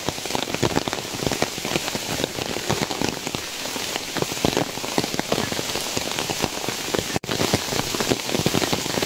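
Heavy rain falling, with many sharp, close raindrop hits over a steady hiss.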